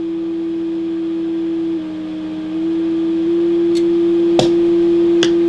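A steady low beat tone from a portable shortwave receiver in SSB mode, picking up the IC-201 transceiver's band-crystal oscillator in transmit. About two seconds in the pitch drops a little, then it steps back up slightly higher as the transmit pitch pot is trimmed to match the receive pitch. A few sharp clicks come near the end.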